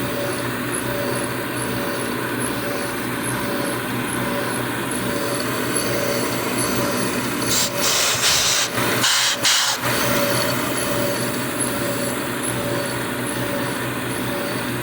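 1980 Shizuoka AN-S CNC milling machine running steadily, milling a slot in 1018 carbon steel, with a faint high tone pulsing about twice a second. About halfway through, a loud hiss comes and goes for roughly two seconds.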